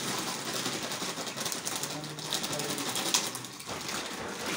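Dry food pieces pouring out of a plastic packet: a steady, rapid pattering rattle.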